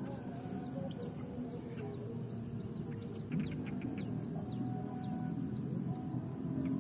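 Small birds chirping: a run of short, high, falling chirps, thickest in the middle of the stretch, over background music.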